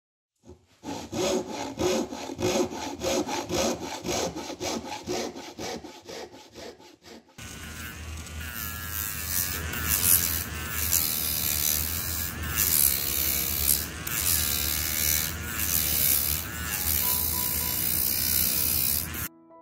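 Rhythmic scraping strokes on wood, about three a second, for the first several seconds. Then a Dremel rotary tool runs with a sanding attachment against the inside of a wooden bowl, its whine wavering as the load changes, until it cuts off just before the end.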